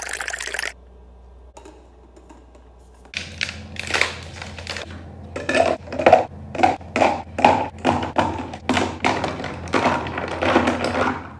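Coffee briefly poured into a plastic cup, then ice cubes knocking and clinking against the plastic cup as the iced coffee is stirred with a straw. The knocks come at about two a second.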